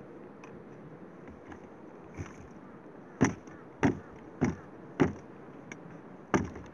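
Snow crunching as a homemade bicycle-wheel snow plough is pushed through deep snow: four sharp crunches about half a second apart from about halfway in, then one more near the end.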